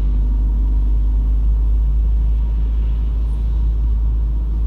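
Steady low rumble of a car driving along a rain-wet road, heard from inside the cabin.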